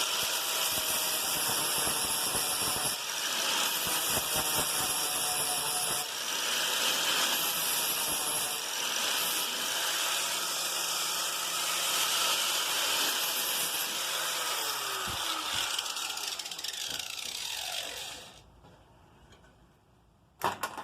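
Angle grinder with a flap disc grinding down fresh MIG welds on a steel Allen key, a loud, steady grinding hiss whose intensity shifts every few seconds as the disc is worked over the metal. The grinder is switched off and winds down with a falling whine, followed near the end by two sharp clicks.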